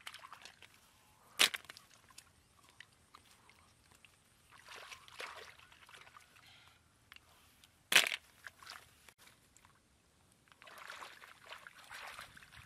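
Hands groping and sloshing through shallow muddy water and mud, searching for snails, in patches of splashing. Two sudden sharp sounds stand out, one about a second and a half in and a louder one about eight seconds in.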